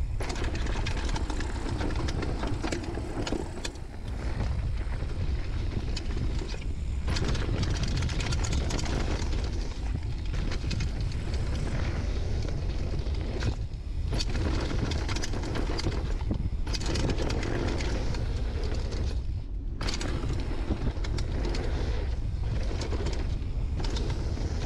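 Mountain bike riding fast down a dirt trail, heard from a camera on the rider: wind buffeting the microphone as a steady low rumble, over tyres rolling on dirt and stones and the bike clattering over bumps. The tyre and clatter noise drops away briefly a few times.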